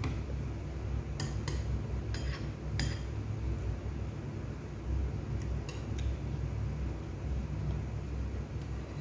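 Spoon and fork clinking and scraping against a plate while eating: a handful of sharp taps, several in the first few seconds and two more a little later, over a steady low hum.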